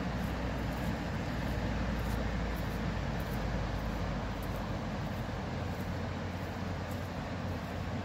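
Steady outdoor rumble of distant surf breaking on the beach mixed with traffic on the coastal road below.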